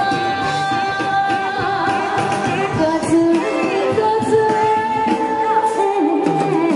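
Taiwanese Hokkien pop song sung live with instrumental accompaniment, the voice holding long, sliding notes.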